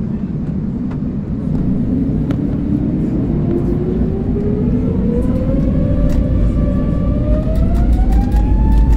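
Airbus A321neo's CFM LEAP-1A jet engines spooling up for takeoff, heard inside the cabin: a whine climbing steadily in pitch over a deep rumble that grows louder near the end.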